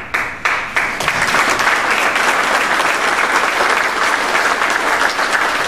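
Audience applauding: a few separate claps at the start quickly build into steady, dense applause.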